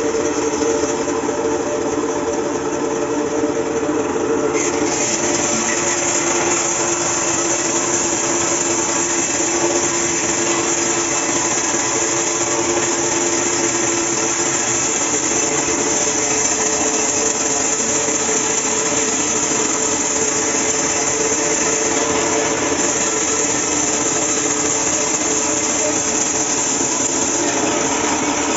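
Bandsaw running steadily as it saws through a tall block of black wood: a constant motor and blade hum under a loud hiss of cutting. The hiss grows louder about four and a half seconds in.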